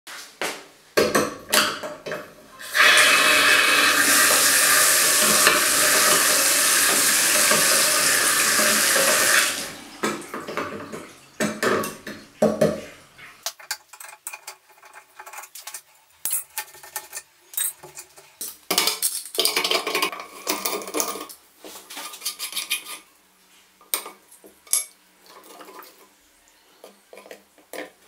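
Water running steadily from a single-lever mixer tap into a ceramic basin for about seven seconds, then stopping. After that come many small metallic clicks, clinks and taps as the leaking tap's lever handle and ceramic cartridge are taken apart.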